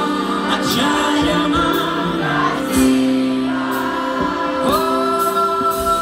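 Live pop music with a male singer and band, heard through the concert's loudspeakers from the audience, with long held notes.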